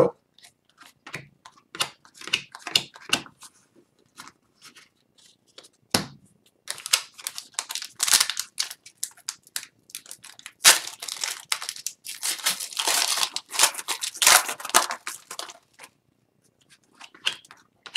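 A shiny hockey-card pack being torn open and crinkled by hand. Light clicks and rustles of cards and packs being handled come first, with a soft knock about six seconds in. The tearing and crinkling fill the middle stretch and stop a couple of seconds before the end.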